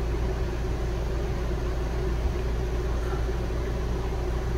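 Steady low machine hum with a constant drone deep in the bass and a faint, even whine above it, unchanging throughout.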